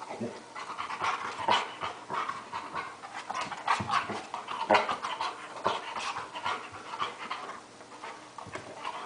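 Dog panting hard in short, uneven breaths during rough play with a cat.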